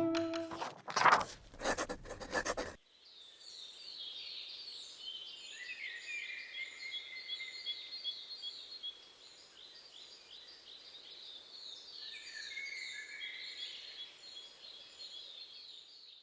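Birds chirping and trilling in a forest, many quick high notes overlapping. The first few seconds are covered by a few loud sharp hits.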